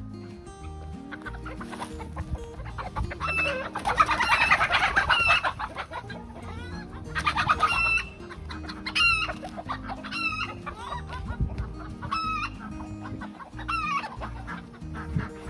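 Chickens clucking and calling in a string of short, repeated calls, loudest about four seconds in and again near eight seconds, over background music with steady low notes.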